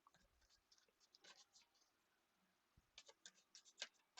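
Faint clicks and scratches of tarot cards being handled, drawn and laid out, a few about a second in and a quick run of them near the end.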